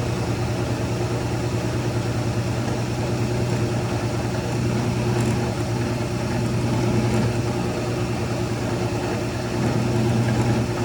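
Drill press running steadily with a constant motor hum, center-drilling a broken hinge pin in a cast door hinge.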